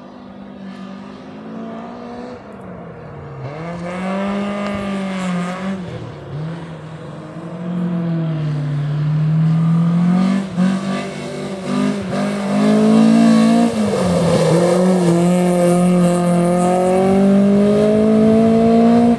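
Rally car engine at full attack approaching, its revs climbing and dropping repeatedly through gear changes and lifts, growing steadily louder as it nears.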